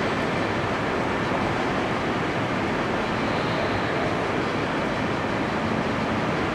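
Steady, even background hiss of a large indoor arena, with no distinct sounds in it.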